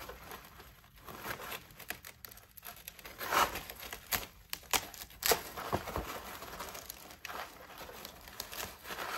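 A dahlia tuber clump being twisted and pulled apart by hand, so that dry roots and old stems crackle and snap and loose soil rustles onto cardboard. A few sharper cracks come about three and a half and five seconds in.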